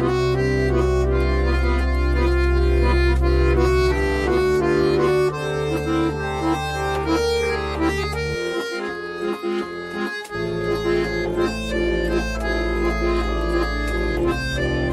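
Instrumental break of a song: a melody played over held bass notes, with no singing. The bass drops out for about two seconds a little past the middle, then returns.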